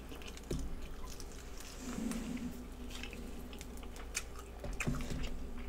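Faint close-up chewing and wet mouth noises while eating, with scattered small clicks and two brief low hums.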